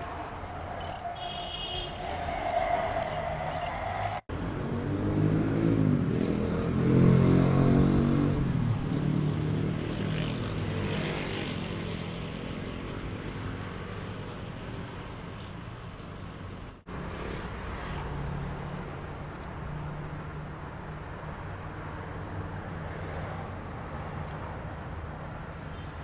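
A passing road vehicle in the background: its engine note swells and fades over steady street noise. A row of light, evenly spaced clicks sounds in the first few seconds.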